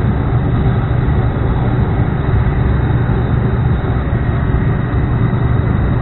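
Packaged LP gas furnace running on heat, with the inducer motor going and the burners lit: a steady low hum and rush that holds level throughout.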